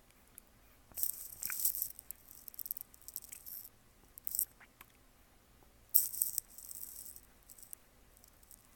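A cat licking and nibbling at a Pringles chip held in someone's fingers: several short bursts of crackly crunching, the loudest about six seconds in.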